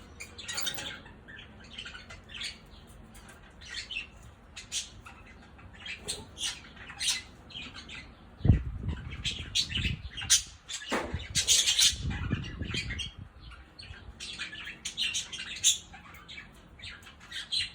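Pet budgerigars chattering with many short, high squawks and chirps throughout. A sharp thump about halfway through, then some low rumbling.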